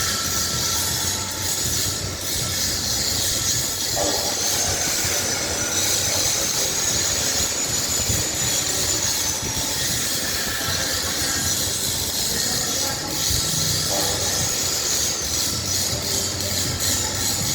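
Steady, loud shop machinery noise: a constant hiss with a high, wavering whine over a low hum.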